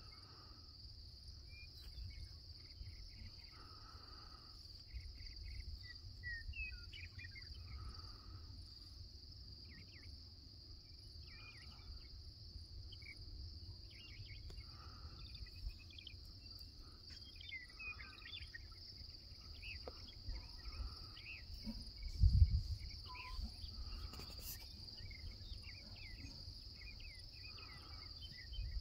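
Steady high insect chorus, trilling without a break, with scattered short chirps and a softer call repeating about every two seconds. A low rumble runs underneath, and a single low thump about three-quarters of the way through is the loudest sound.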